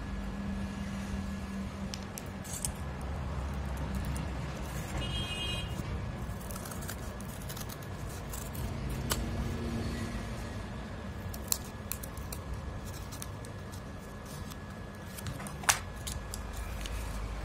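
Large scissors snipping through corrugated cardboard in a run of scattered clicks and cuts, with two sharper clicks standing out, one about two-thirds through and one near the end. A steady low rumble sits underneath throughout.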